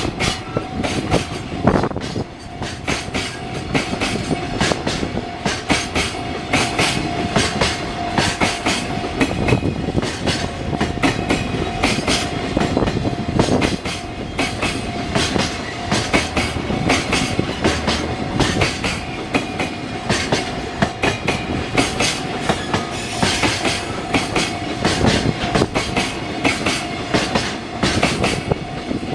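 Train passing close by with continuous running noise and dense, irregular clicking of wheels over rail joints. A steady high tone runs through it.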